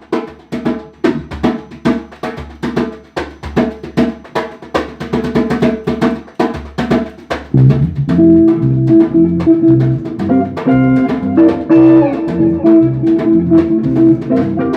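Samba-reggae band playing an instrumental intro: drums alone in a steady rhythm at first, then bass and other pitched instruments come in over the drums about seven and a half seconds in.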